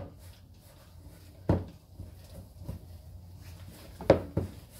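Hands mixing and pressing dough in a stainless steel mixing bowl, with three sharp knocks from the bowl: one about a second and a half in and two close together near the end.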